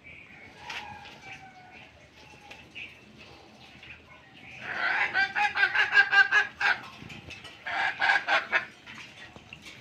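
A chicken calling loudly in a rapid, pulsing run of notes about halfway through, then a shorter run a second later, with fainter bird calls before.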